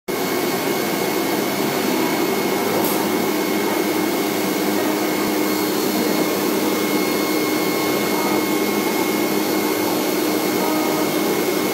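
Flatbed digital CNC cutting plotter running: a steady rushing hum with a constant thin high whine over it.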